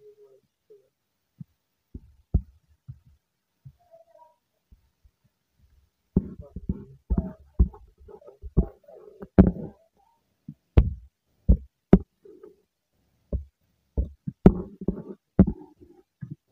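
Irregular close-up knocks and taps on the recording device, a few at first and then coming thick and fast from about six seconds in: handling noise of writing on its touchscreen.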